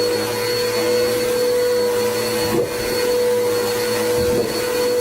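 A steady, loud electric motor running with a constant whine, with a few brief rising-and-falling sounds over it about two and a half and four and a half seconds in; it cuts off abruptly at the end.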